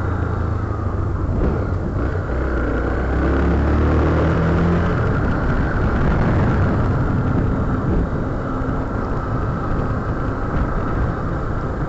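Heavy wind rush buffeting an action camera's microphone on a moving motorcycle, with the engine's drone underneath.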